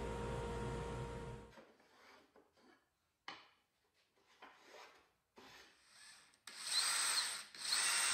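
Steady hum of a running drill press that cuts off abruptly after about a second and a half. A few faint knocks follow, then near the end two short spells of wood rubbing and scraping against wood.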